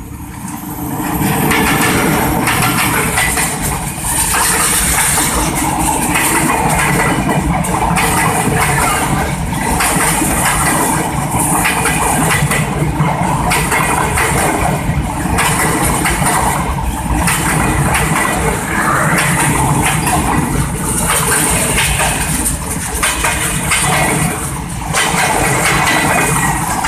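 Diesel-hauled passenger train passing close by: the loud run rises over the first couple of seconds as the locomotive arrives, then the coaches run past with a steady noise of wheels on rails broken by regular clacks.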